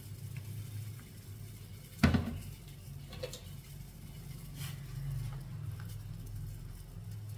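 Metal kitchen utensils knocking against a large aluminium cooking pot: one sharp, loud clank about two seconds in, then a few lighter clinks, over a steady low hum.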